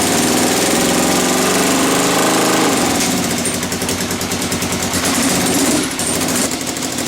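ATV engine running on freshly rebuilt carburetors: it revs up about a second in, drops back near three seconds, then settles into a steady idle that sounds good and even.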